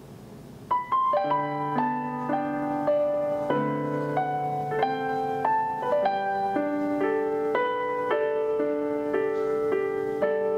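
Gentle background keyboard music: a steady melody of single notes over held chords, coming in fully about a second in after a quieter held tone.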